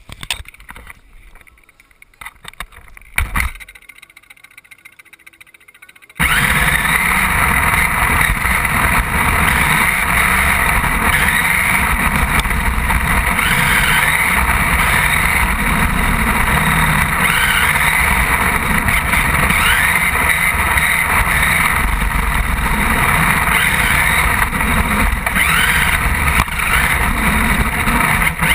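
A few handling knocks on the camera, then from about six seconds in the loud, steady running noise of a radio-controlled car driving over concrete, picked up by the camera mounted on the car, with the motor's pitch wavering up and down.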